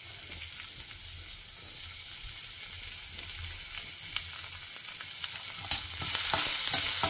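Chopped onions sizzling in hot oil in a stainless steel pan. About six seconds in, a steel spoon starts stirring them: the sizzle gets louder, with clicks and scrapes against the pan.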